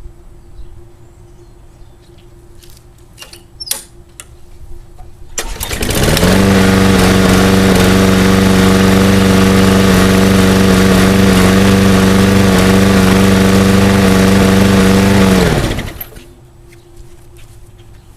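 Small gas engine of a piece of lawn equipment catching on its first cold start about five seconds in, running loud and steady at high speed for about ten seconds, then shut off, its pitch falling away quickly.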